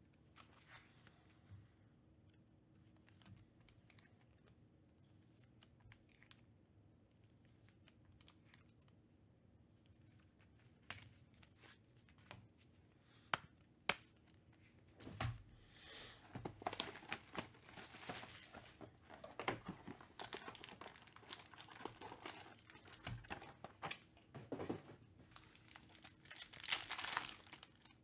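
Foil wrapper of a Panini Prizm trading card pack crinkling and tearing open, busiest from about halfway through and loudest near the end. The first half holds only scattered light clicks of handling.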